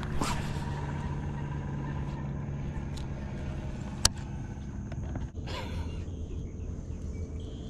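Steady low motor hum that fades after about five seconds, with one sharp click about four seconds in and a brief rustle shortly after.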